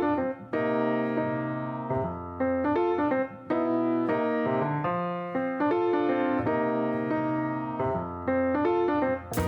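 Background music: a piano-led keyboard tune playing a sequence of chords and notes.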